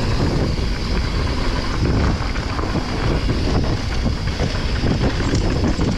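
Wind buffeting the microphone and tyres rolling over a loose dirt trail as a downhill mountain bike descends at speed, with small knocks and rattles from the bike over bumps.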